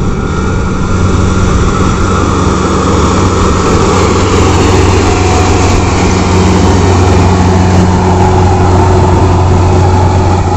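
Rice combine harvester running close by while it cuts and threshes paddy: a loud, steady engine hum under a dense mechanical rushing noise, growing slightly louder about a second in.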